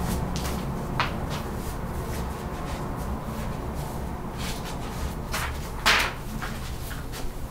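Sheets of paper being handled, with a light tap about a second in and a louder rustle near six seconds, over a steady low room hum.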